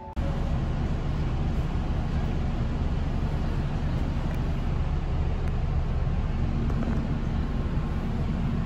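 Steady running noise of a commuter train, heard from inside the carriage: a constant low rumble with an even hiss above it.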